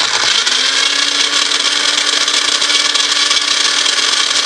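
Magic Bullet Express blender's motor running steadily with the cup held pressed down on the base, ice rattling and grinding inside. The ice is not being chopped.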